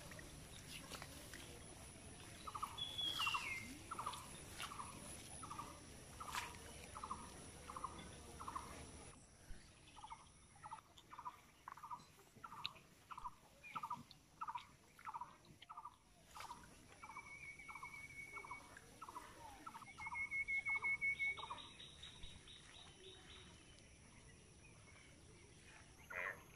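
An animal calling in a long series of short notes, about two a second, over a steady high-pitched insect drone, with a few brief bird trills; a louder trill comes about twenty seconds in.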